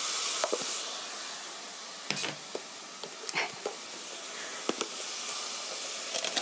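Sautéed onion, garlic and carrot with soy sauce, ketchup and sugar sizzling steadily in a stainless steel pan, with a few light clicks and knocks scattered through.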